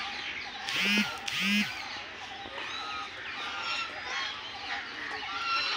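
White domestic geese honking: two loud honks in quick succession about a second in, with other birds chirping throughout.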